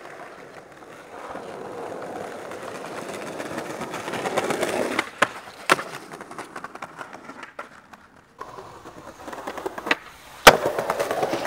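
Skateboard wheels rolling on stone paving, with sharp clacks of the board: two clacks half a second apart about five seconds in. Near the end comes one loud slap as the board lands an ollie down stairs, then the wheels roll on.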